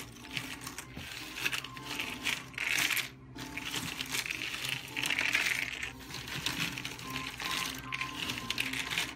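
Loose cardboard jigsaw puzzle pieces clattering and rustling on a tabletop as hands break up the assembled puzzle and sweep and stir the pieces, in surges that are loudest about two and five seconds in.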